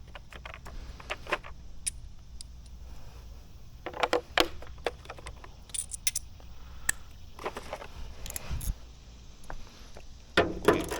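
Scattered metallic clicks and clinks of hand tools and small bolts as 10 mm hood bolts are undone, with a cluster of clinks about four seconds in and another near the end.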